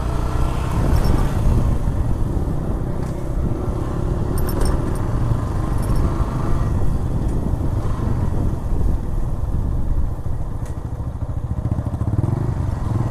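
Motorcycle running under way over a rough, broken road, with a steady low rumble and a few faint knocks as the bike jolts.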